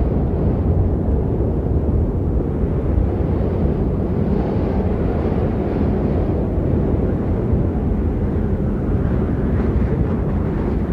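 Steady low wind rumble of a snowstorm ambience, a constant deep noise without breaks or distinct gusts.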